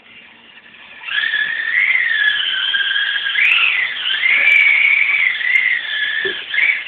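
Tamiya TT-01 radio-controlled car's electric motor and gear drive whining as it drives, starting about a second in. The high whine rises and falls in pitch as the car speeds up and slows through the turns, dipping briefly near the end.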